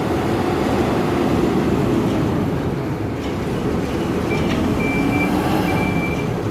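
Hidromek 102B backhoe loader's diesel engine running steadily under work. From about four seconds in, its reversing alarm sounds, a high beep repeating roughly once a second.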